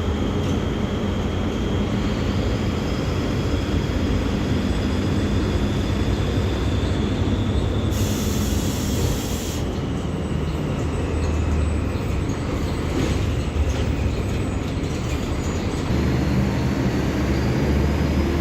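Mercedes-Benz OF-1724L bus's diesel engine running steadily under way, with a thin high whine that slowly drops in pitch and then rises again near the end. A brief high hiss cuts in about eight seconds in.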